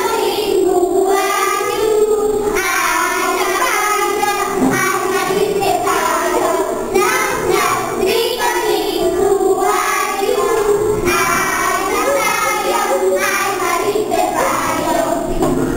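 A group of young children singing a song together, in phrases of a few seconds each.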